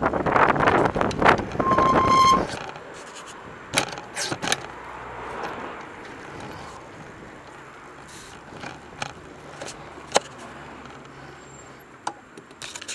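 Wind buffeting the microphone of a camera mounted on a rolling bicycle's frame, loud for the first two and a half seconds and then dropping to a low hiss. Scattered sharp clicks and rattles from the bike follow, and a short steady beep sounds about two seconds in.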